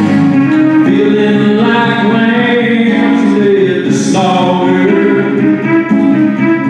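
A man singing a song with long held notes to his own acoustic guitar.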